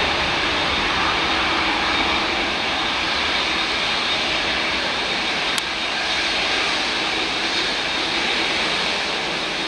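Boeing 787-8 Dreamliner's twin turbofan engines running at low thrust while the airliner taxies, a steady jet rush with a faint low hum under it.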